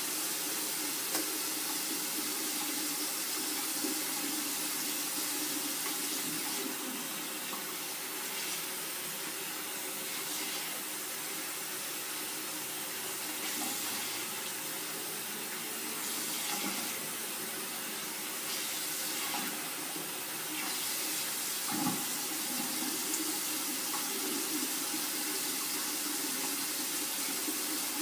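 Tap water running steadily into a sink, its hiss dulling several times in the middle stretch as the stream is broken up, with one sharp knock a little after 21 seconds.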